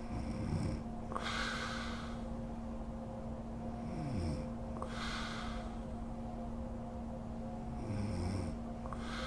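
Woman snoring in her sleep: three low snores about four seconds apart, one sliding down in pitch, each followed by an airy, hissing breath, over a steady hum.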